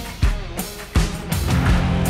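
Background rock music with a steady drum kit beat.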